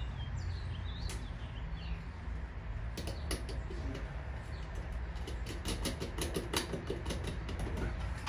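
Hand socket ratchet clicking in quick runs while a bolt is being tightened, over a steady low hum. Birds chirp briefly near the start.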